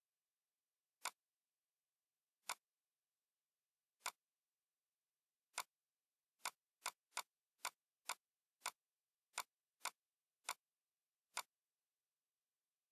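Computer mouse button clicking: fourteen single sharp clicks. The first few are a second or more apart, then about two a second from roughly halfway through as strokes are drawn one after another.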